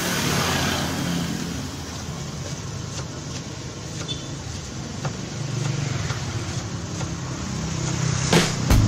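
Steady rumbling roar of a gas burner under a wok of frying noodles, swelling a little about six seconds in and again near the end, with a few faint clicks.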